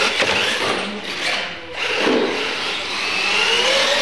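Electric radio-controlled monster trucks racing on a concrete floor: their motors whine, rising and falling in pitch as the trucks speed up and slow over the ramps, over tyre and chassis noise.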